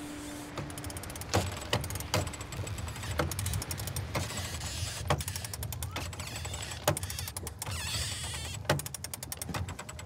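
Mechanical clicking and knocking over a steady low rumble: single sharp knocks every second or so, mixed with short runs of rapid ratchet-like clicks.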